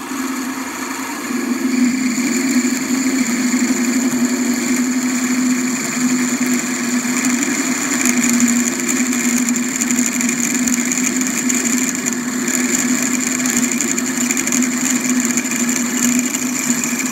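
Warco metal lathe running steadily while a 6.8 mm twist drill cuts into a metal part, opening a pilot hole to tapping size for an M8 thread. A steady hum with a high whine, getting a little louder about two seconds in as the cut takes up.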